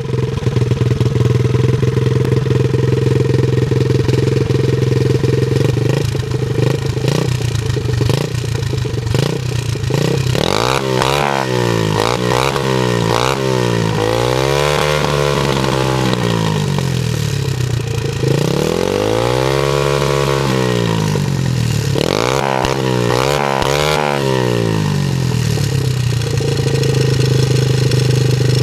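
BFD Ares 125cc pit bike's single-cylinder four-stroke engine idling on its stand, then revved about a third of the way in with several short throttle blips and two longer revs that rise and fall, before settling back to a steady idle near the end.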